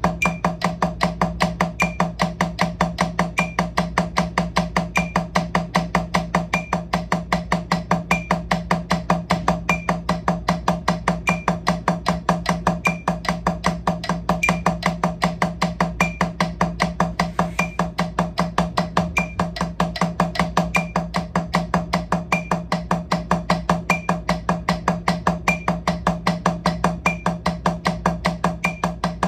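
Drumsticks striking a drum practice pad in steady eighth notes at 152 BPM, about five even strokes a second. A small higher tick falls about every second and a half, once every four beats.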